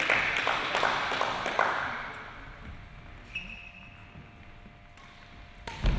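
Hand clapping for about two seconds, then dying away. A single sharp knock near the end is the loudest moment.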